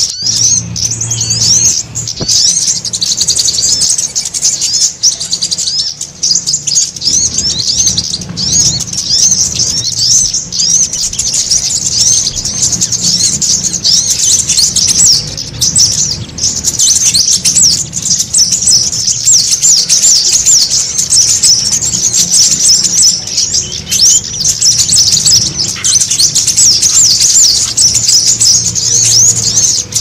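A dense, noisy chorus of many small songbirds, a mixed bird-lure recording. Fast, high-pitched chirps and twittering overlap without a break.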